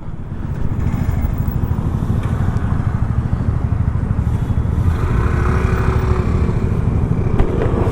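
Motorcycle riding along at a steady pace: a continuous low rumble of engine and road noise.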